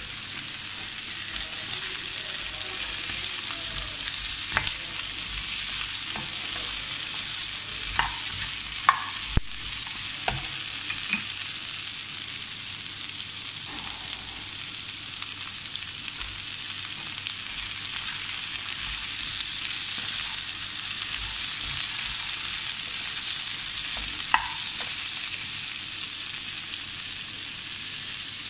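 Vegetables sizzling steadily as they are stir-fried in a nonstick wok, with a few sharp knocks of a utensil against the pan, several about eight to ten seconds in and one more near the end.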